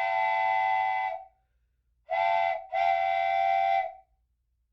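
Steam locomotive whistle blowing a long blast, a short one, then another long one, several steady tones sounding together in each blast.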